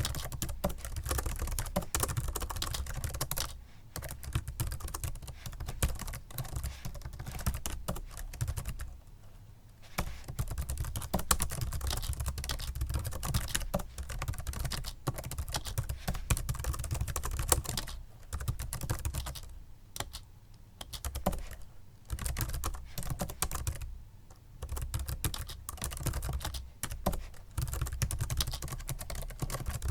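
Fast typing on a Microsoft Sculpt Ergonomic Keyboard, a membrane keyboard: rapid runs of soft key clicks broken by a few brief pauses.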